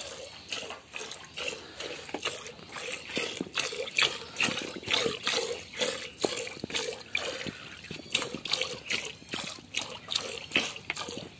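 Milk squirting from a cow's teats into a plastic bucket part-filled with frothy milk during hand-milking, in a regular rhythm of about two squirts a second.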